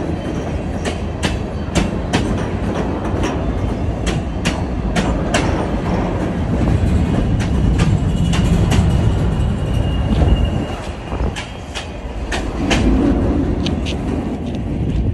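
Freight cars rolling past at close range: a steady rumble of steel wheels on rail, with sharp clacks as the wheels cross rail joints. The last car clears near the end.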